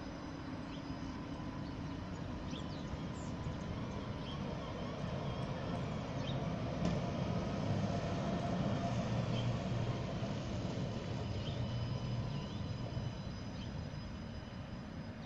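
An Alstom Citadis X05 tram going by at low speed: the steady hum of its electric drive and the rolling of its wheels on the rails, growing louder to a peak about seven to ten seconds in, then easing off.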